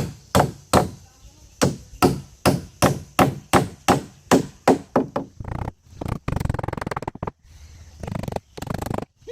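Rapid, evenly spaced blows of a tool striking wood, about two and a half a second, for about five seconds. They give way to a rough, rumbling buzz that comes and goes.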